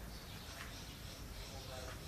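Faint distant voices over a steady low rumble.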